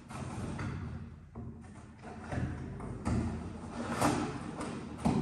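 Cardboard shipping box being handled: scattered thumps and taps with brief rustling swishes of cardboard.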